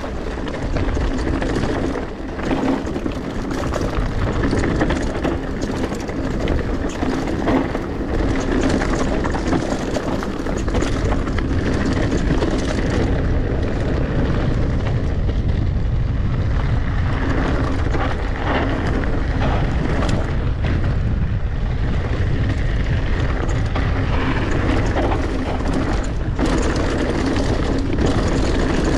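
Wind rushing over the microphone with the rumble and rattle of a mountain bike riding down a rough trail, with frequent sharp knocks from the bike jolting over bumps.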